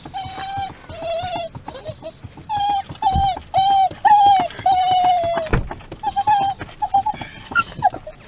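A pet dog whining in a string of about ten pitched cries, most short, one held for about a second just past the middle, some sliding down at the end.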